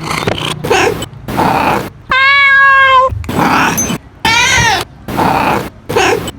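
Domestic cat meowing: a string of separate calls, with one long, level-pitched meow about two seconds in and a meow that rises and then falls a little after four seconds.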